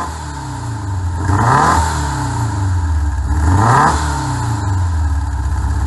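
Air-cooled VW Beetle flat-four engine breathing through stainless headers and a Sirrush stainless steel high-performance muffler, blipped twice: the revs rise and fall back about a second and a half in and again near four seconds, then it settles into a steady idle.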